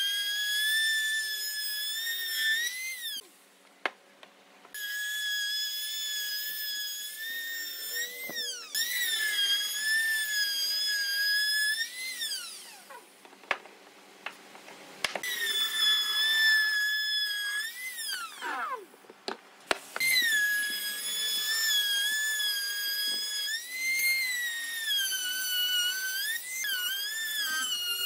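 Compact electric trim router running with a high-pitched whine as it cuts wood, the pitch dipping and wavering under load. It is switched off several times, its whine gliding down as the motor winds down, and started up again.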